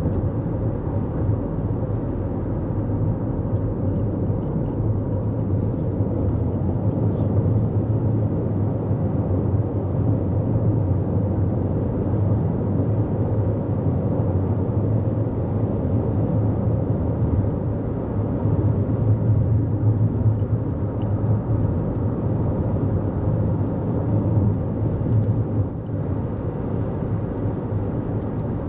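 Steady road noise of a 2024 Toyota Corolla Cross cruising at highway speed: a low, even rumble of tyres on pavement.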